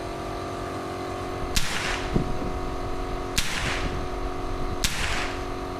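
Three gunshots about one and a half to two seconds apart, each followed by a short echoing tail, over a steady background hum.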